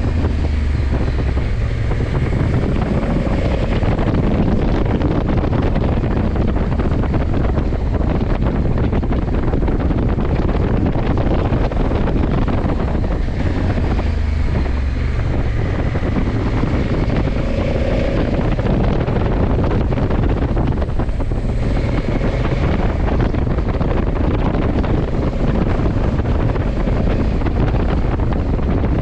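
Wind buffeting the camera microphone on a moving motorcycle, over the steady drone of the 2020 Honda CRF1100 Africa Twin's parallel-twin engine and road noise, the engine note rising and falling a few times.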